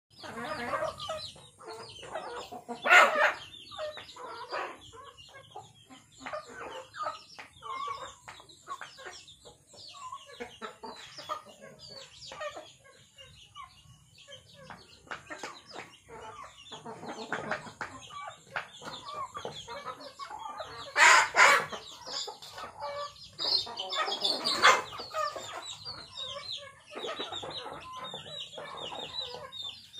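Flock of chickens clucking continually while feeding, with a few much louder calls standing out, the loudest about three seconds in and around twenty-one and twenty-four seconds.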